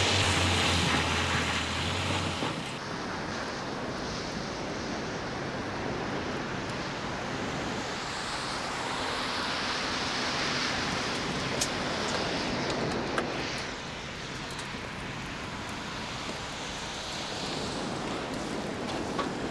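Police car driving past on a wet road: engine hum and tyre hiss, loudest for the first two seconds or so, then fading into a steady hiss of wet road and air. Two small clicks come about halfway through.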